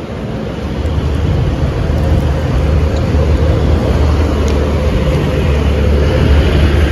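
Steady low street rumble, like traffic, that builds over the first second or two and then holds loud.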